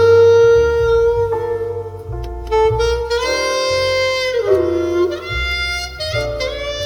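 Jazz trio recording played through a Mercedes C-Class W205's Burmester surround audio system: a held melody line over low bass notes, loud throughout.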